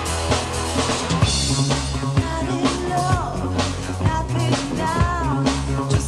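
Live band playing a pop-rock song, with the drum kit's kick and snare keeping a steady beat of about two strokes a second over a bass line.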